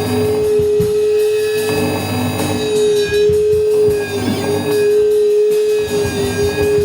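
Experimental noise improvisation: a loud, steady drone tone held throughout, with fainter sustained high tones over dense, irregular percussive clattering and hits.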